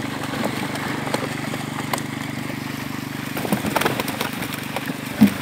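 A motor running steadily with a low, even hum, with scattered short knocks and splashes and one louder thump near the end.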